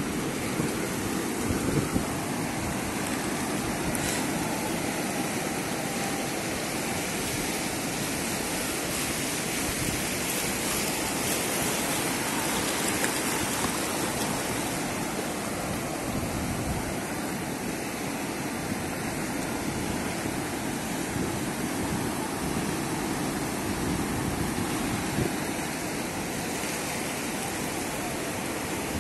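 Small sea waves washing and swirling over rocks in shallow water, a steady rushing with no pauses.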